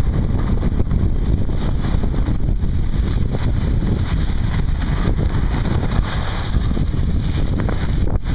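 Wind rushing over the microphone of a camera carried by a skier going downhill: a loud, steady rumble, with the hiss of skis sliding on snow.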